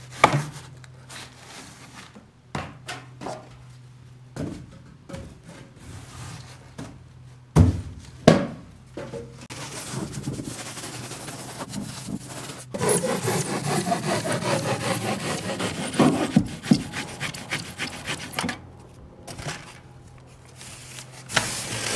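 Hand saw cutting through the expanded-polystyrene foam of insulated concrete form blocks. Scattered knocks and scrapes come first, then a long stretch of fast back-and-forth sawing strokes from about ten seconds in.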